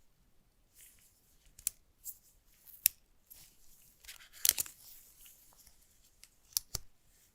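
Packaging being handled and opened: short bursts of paper and cardboard tearing and rustling, with sharp clicks and taps. The loudest burst comes about four and a half seconds in.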